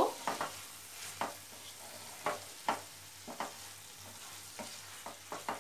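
Spatula stirring stir-fried mushrooms and capsicum in a thick sauce in a non-stick frying pan: irregular soft scrapes and taps against the pan, about one or two a second, over a faint sizzle.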